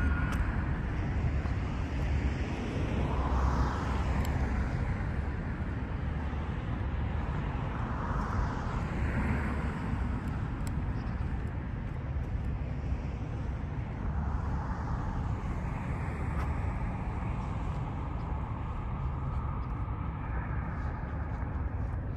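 Outdoor road traffic: a steady low rumble with vehicles swelling past every few seconds.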